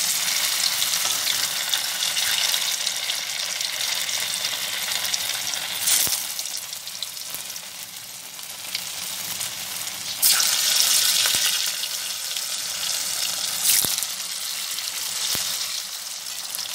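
Rolled colocasia-leaf pieces frying in hot mustard oil in a kadai: a steady sizzle that surges louder several times, most strongly for a few seconds around ten seconds in. A few light clicks of the metal spatula against the pan.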